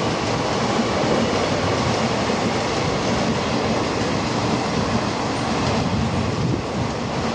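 Kharagpur–Khurda Road Express passenger coaches running through the station at speed without stopping: a steady run of wheel-on-rail noise from the passing train.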